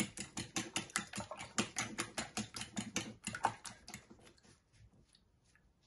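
Two eggs being beaten by hand in a small ceramic bowl: the utensil clicks against the bowl rapidly and evenly, about seven strokes a second. It slows and stops about four seconds in, leaving a few faint taps.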